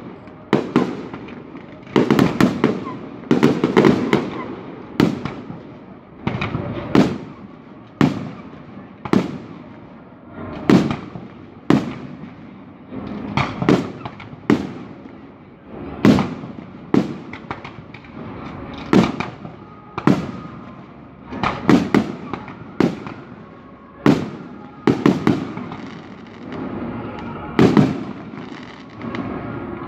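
Aerial firework shells bursting in quick succession, a sharp bang every second or so, each trailing off in a rolling echo.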